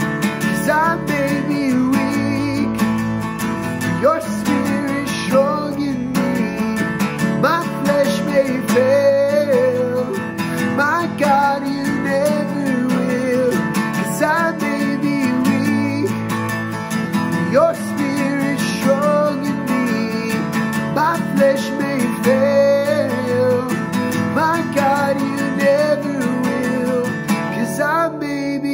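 Takamine acoustic guitar strummed steadily, accompanying a man singing a slow worship song.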